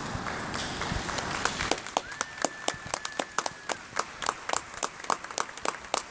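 Horses' hooves and coach wheels on the soft dirt of an arena floor, giving way about two seconds in to scattered clapping from a small audience at about four claps a second. A single long whistle is held for a moment during the clapping.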